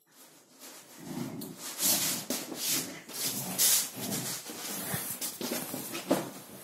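A Silken Windsprite dog digging at and tossing a plush cat bed: rustling fabric and scuffling on a wooden floor, loud in uneven bursts from about a second in.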